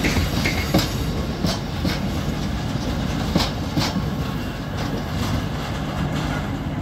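Cement hopper wagons of a freight train rolling past, wheels clicking and clacking over the rail joints, with a few sharp clacks standing out. A steady low hum runs underneath.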